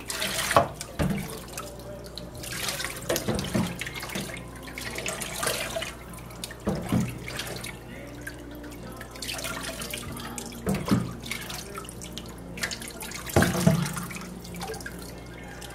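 Rinse water poured from a cup over a corgi puppy in a stainless steel sink, splashing and dripping in several separate pours.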